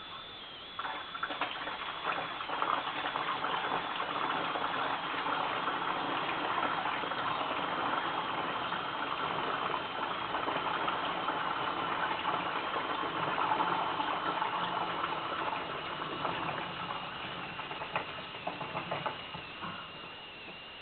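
Toshiba AW-DG16WAG washing machine running with an abnormal motor noise: a rattling, churning noise sets in about a second in and dies away near the end, with a few clicks toward the end. Throughout, a thin high whine slowly falls in pitch.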